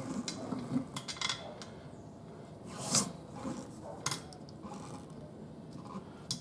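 Scattered metallic clicks, clinks and scrapes of hands and a tire iron working at a steel wheel rim on a manual tire changer while a temporary valve stem is pulled from the rim's valve hole, the loudest knock about three seconds in.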